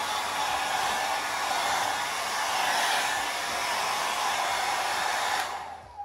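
Havells HD3181 1600 W hair dryer blowing steadily at full speed with the cool shot button pressed. It is switched off and winds down near the end.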